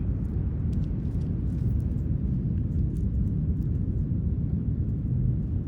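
Steady low rumble of beach ambience: ocean surf and wind on the microphone, with no bird calls.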